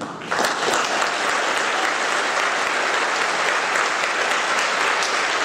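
Audience applauding: dense clapping breaks out suddenly just after the start and holds steady.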